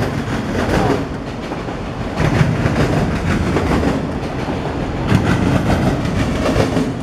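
Freight train of autorack cars rolling past close by: a loud, steady rumble of steel wheels on the rails with repeated clacks as the wheels cross the rail joints.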